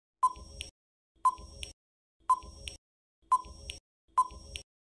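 Quiz countdown timer sound effect: five short ticks about one second apart, each a sharp beep-like click followed by a fainter second click.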